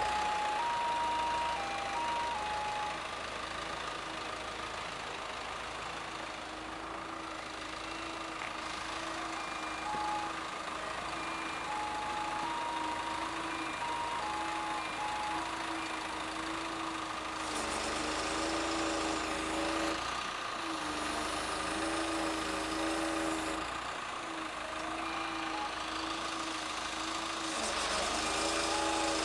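The Jinwoo280 truck-mounted crane and boom lift running its engine-driven hydraulics as the telescopic boom works: a steady hum that swells and gets busier twice. An electronic warning chime plays short stepping notes near the start and again partway through.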